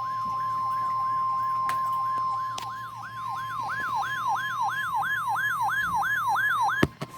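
NOAA Weather Radio alert: the steady 1050 Hz warning alarm tone, which signals that a warning message follows, sounds together with a repeating siren-like falling sweep, about three sweeps a second. The steady tone weakens after about two and a half seconds while the sweeps go on, and both cut off with a click near the end.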